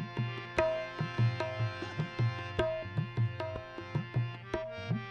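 Instrumental bhajan accompaniment: a tabla keeps a steady rhythm of about two deep bass strokes a second, some bending in pitch, under held melodic tones.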